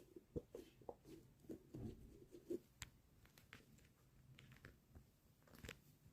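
Near silence with a few faint, short taps and light rustles, mostly in the first couple of seconds and once more near the end.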